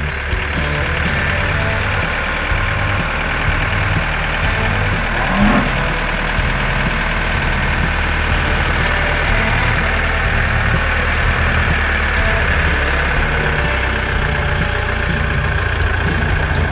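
Heavy farm machinery, a combine harvester or tractor, with its diesel engine running steadily under work. There is a short rising whine about five and a half seconds in.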